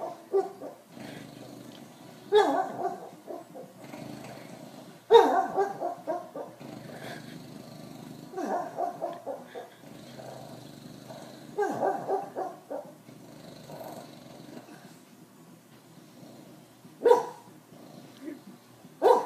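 A dog barking and growling in its sleep: short bunches of muffled woofs every few seconds, the loudest about five seconds in.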